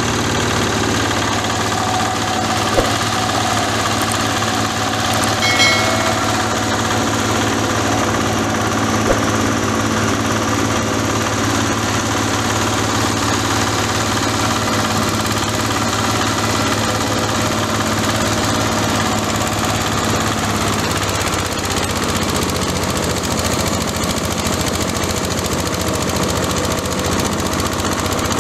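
Engine-driven oil palm frond chopper running steadily, its engine note mixed with a fast rattling knock, with a few sharp clicks in the first ten seconds.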